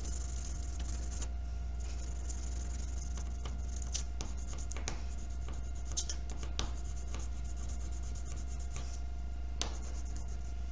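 Colouring strokes scratching on paper for about the first second, then scattered light clicks and taps as drawing tools are handled, over a steady low hum.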